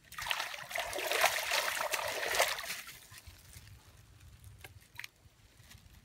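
Water splashing and trickling for about three seconds, then fading; a few faint clicks follow.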